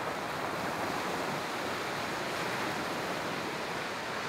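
Small waves breaking and washing up on a gravel beach where a river runs out into the sea: a steady rush of surf and current.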